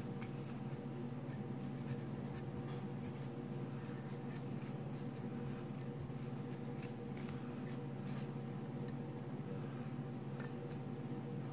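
Steady background hum with faint light scratches and ticks from handling a fly in a tying vise.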